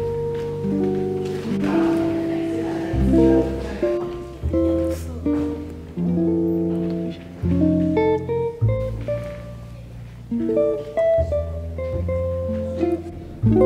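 Background music: a plucked acoustic guitar melody over low bass notes that change every second or two.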